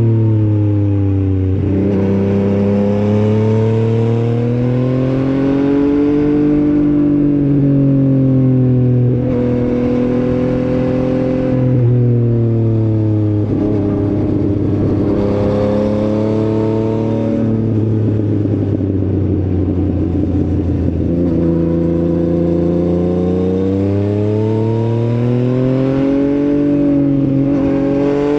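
Motorcycle engine recorded close on the bike while riding, revving up and easing off in several long sweeps, with sudden drops in pitch at gear changes. It sounds rougher and noisier in the middle stretch.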